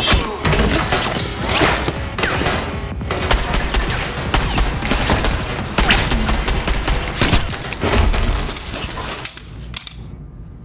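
Sustained gunfire: many rifle shots in quick succession, dying away about nine seconds in.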